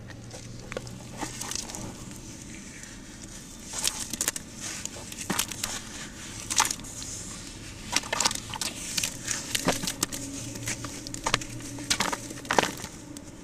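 Hands crumbling a soaked lump of reused, dry-crumbly cement in a tub of water: gritty crumbling with irregular sharp crackles as pieces break off and drop into the water.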